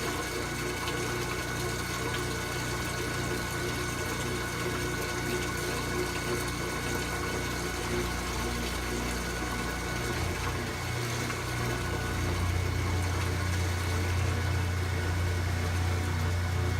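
Kenmore 90 Series washing machine in its rinse and drain phase: the drain pump runs with water moving through it, under a steady whirring tone. A low hum grows louder about eleven seconds in.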